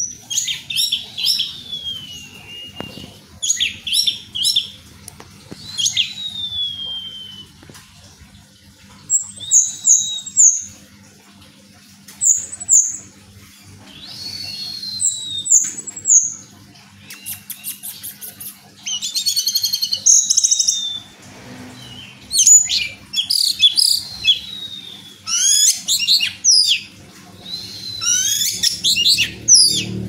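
Orange-headed thrush (anis merah) singing a varied song of short high whistled phrases, some sliding downward and others quick trills, a new phrase every second or two.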